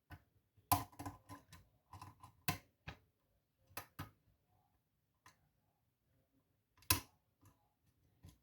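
Lock pick clicking and tapping against the pins and keyway of a challenge lock as it is picked: a dozen or so faint, irregular sharp clicks, the loudest about 7 seconds in.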